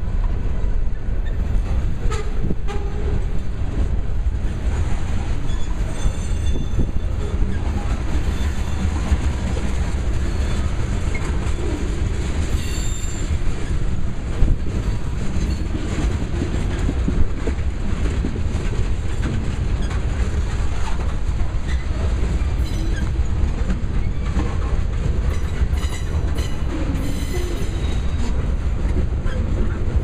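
Freight cars of a slow manifest train rolling past: a steady low rumble with wheels clacking over the rail joints and a few brief high-pitched wheel squeals.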